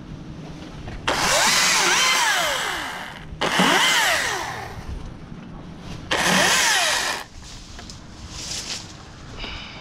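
Husqvarna T536LIXP battery top-handle chainsaw cutting small leafy limbs in three short bursts, its motor whine rising as the trigger is pulled and sliding down as it spins down between cuts.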